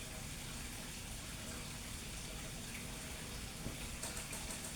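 Steady background noise hiss during a pause, with a few faint ticks near the end.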